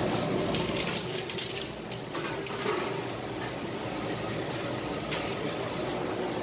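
Steady hum of a seafood tank's aeration pump and the bubbling of aerated water around live octopus, with a few light clicks and knocks in the first couple of seconds.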